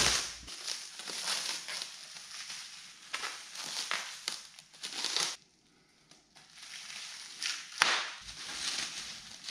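Plastic packaging wrap crinkling and rustling as it is pulled off and unwound by hand, in irregular crackly bursts. There is a short pause about halfway through.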